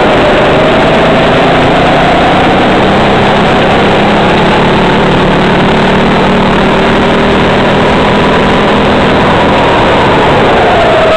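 Racing kart engine heard from the driver's seat at speed, its pitch climbing gradually as the kart accelerates and falling back near the end as it slows into a corner.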